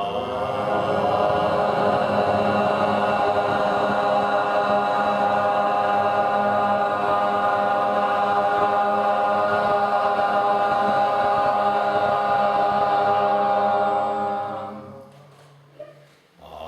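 Group of voices chanting one long sustained note, held at a steady pitch for about fourteen seconds before fading away. After a short breath the next long chanted note begins near the end.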